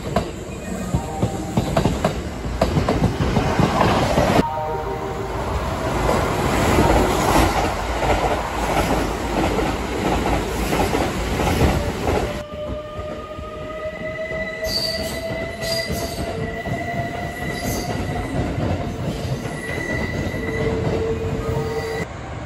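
Electric trains running through a station: a heavy rumble and rattle of a train passing close, then a quieter stretch with a thin whine that rises slowly in pitch.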